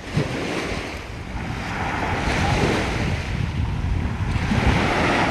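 Ocean surf washing onto the beach, swelling about two seconds in and again near the end, with wind rumbling on the microphone.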